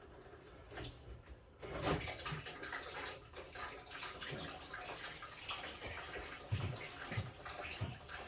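Water running and splashing as the central heating system is drained, starting suddenly about a second and a half in, with scattered knocks.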